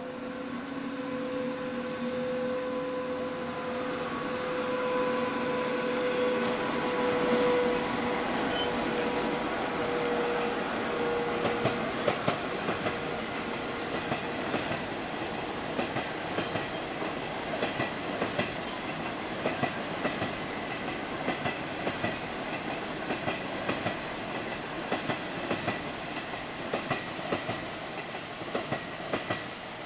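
An SS8 electric locomotive and its train of 25T passenger coaches passing by. A steady hum fades after about ten seconds, and the coaches roll by with a rumble and repeated clicks of wheels over rail joints.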